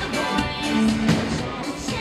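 Pop music with singing.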